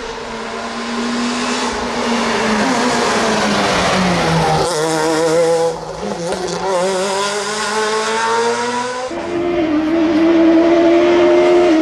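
Rally car engine at high revs approaching and passing at speed. Its pitch slides down as it goes by, then climbs again as it pulls away. About nine seconds in it cuts abruptly to a steady humming tone.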